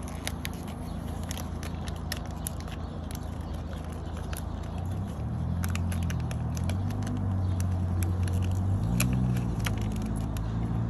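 Crinkling and tearing of a small plastic wrapper being opened by hand, in quick irregular crackles. Under it a low engine hum runs throughout and grows louder in the second half.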